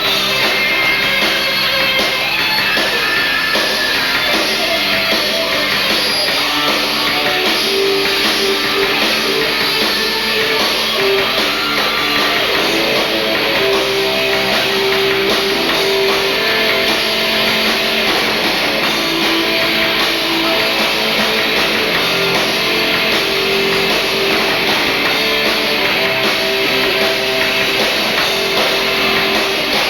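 Rock band playing live, with guitars and a drum kit, loud and continuous.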